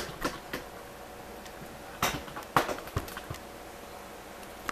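A few light knocks and clicks at irregular times, the loudest pair about two seconds in and about half a second later, over a faint steady background.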